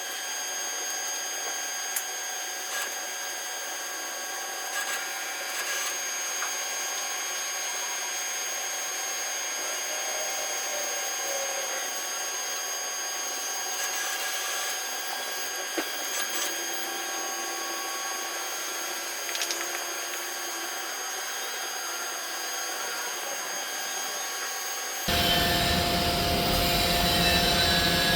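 Overhead crane's electric hoist and trolley running during a lift, a steady motor whine with several constant tones. About 25 seconds in the sound turns abruptly louder and fuller.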